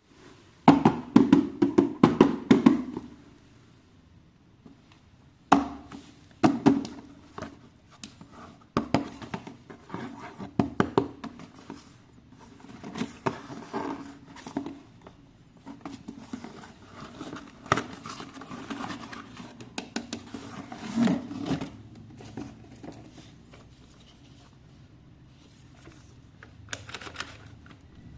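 A toy's packaging being handled and opened by hand: irregular rustles, scrapes and clicks in bunches, with quieter stretches between them.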